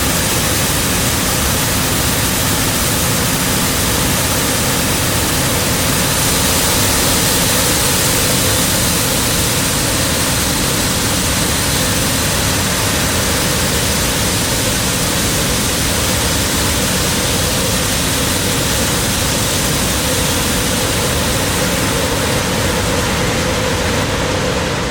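John Deere S7 800 combine running under load while harvesting corn: a loud, steady, even rush of engine and threshing noise that holds without change.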